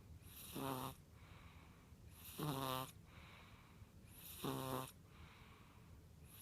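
Snoring from a five-week-old: three short buzzing snores about two seconds apart, each lasting about half a second, with quiet breathing between them.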